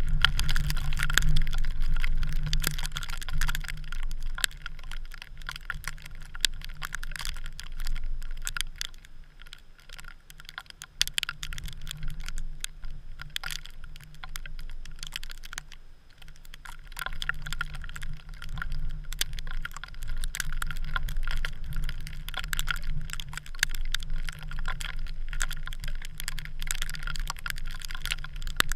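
Storm wind rumbling on the ice, with a dense, irregular ticking and clicking throughout that eases for a while midway.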